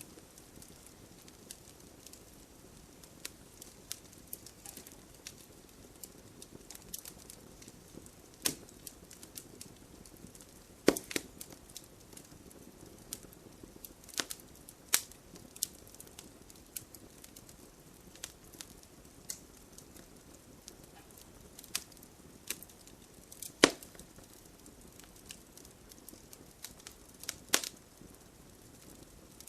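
Wood campfire burning, crackling with irregular sharp pops and snaps over a faint steady hiss; a few pops stand out louder than the rest.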